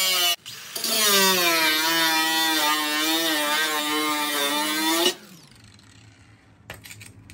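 Angle grinder with its disc cutting into steel, throwing sparks, grinding off rusted screws on a dryer cabinet. The motor whine stops briefly about half a second in, starts again and dips slightly in pitch as the disc bites, then cuts off about five seconds in.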